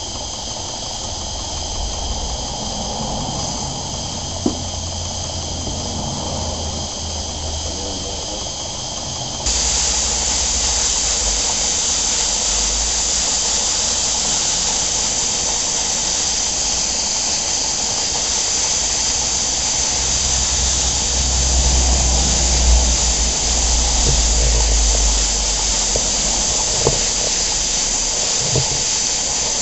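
Steady hiss of steam from a live-steam model engine and its gas-fired Stuart 504 boiler plant, with a low rumble underneath. About nine seconds in, the hiss steps up suddenly and stays louder, with a few faint clicks later on.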